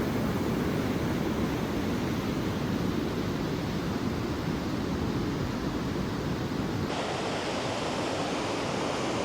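Waterfall cascades rushing steadily, an even wash of falling water heaviest in the low range. About seven seconds in the sound changes abruptly, fuller in the middle and duller on top.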